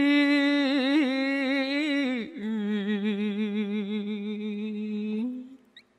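A man chanting Khmer smot unaccompanied: one long held note with a wavering vibrato, which falls to a lower held note about two seconds in and dies away shortly before the end.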